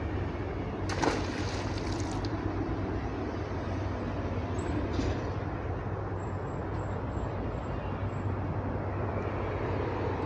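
A steady low rumble with a constant low hum, broken by a short burst of clicking or rattling about a second in and a fainter one about five seconds in.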